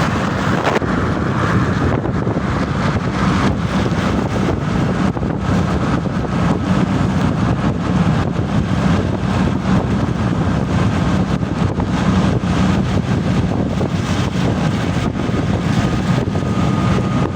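Steady vehicle rumble with wind noise on the microphone.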